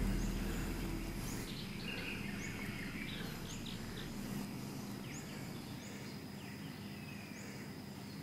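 Outdoor nature ambience: small birds chirping, short high chirps every half-second to a second, over a steady high-pitched drone, typical of a woodland sound bed.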